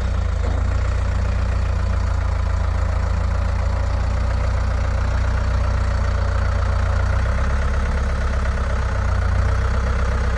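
An engine running steadily at idle, a constant low rumble with no change in speed.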